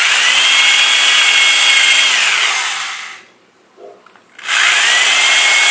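Electric drill boring out a stripped header bolt hole in a 454 big-block Chevy cylinder head with a Time-Sert drill bit. It runs at a steady whine, winds down and stops about two and a half seconds in, then spins up again after a short pause, a little over four seconds in.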